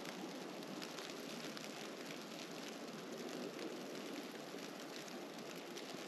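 Snowstorm ambience: a steady rustling hiss of wind and falling snow, with faint irregular ticks scattered through it.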